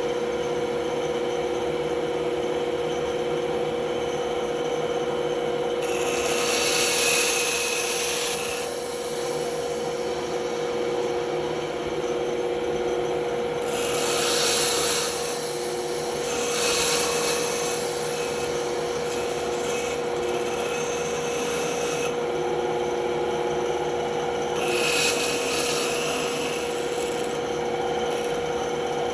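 Band saw running with a steady hum, its blade cutting wood in several spells of higher hiss: around 6 s in, around 14 s, through most of 17 to 22 s, and again around 25 s.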